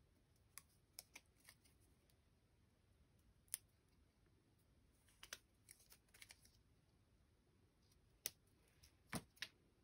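Faint, scattered small clicks and crackles of a die-cut paper branch and a roll of Glue Dots being handled, as the paper is pressed onto the sticky dots and lifted off. The clicks come singly and in short clusters, the loudest near the end.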